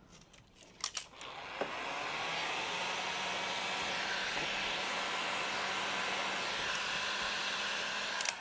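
After a couple of clicks about a second in, a handheld heat gun starts blowing and runs steadily, heating a vinyl decal so its adhesive seals to the paint. It stops abruptly just before the end.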